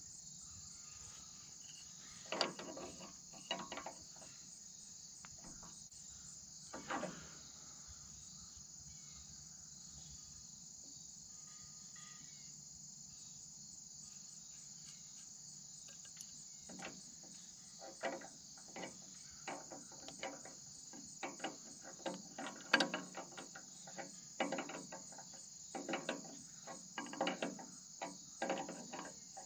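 Steady high insect chorus, with scattered short metallic clinks and knocks of an adjustable wrench on hydraulic hose fittings, a few early on and many in quick succession through the second half.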